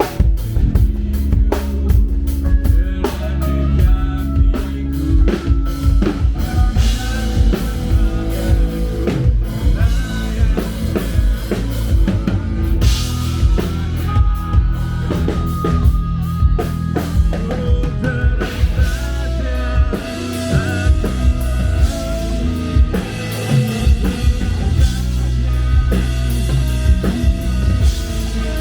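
Rock music with a full drum kit, bass drum and guitar playing continuously.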